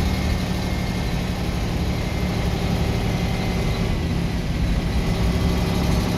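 Leyland National 2 bus's diesel engine idling steadily, heard from inside the passenger saloon.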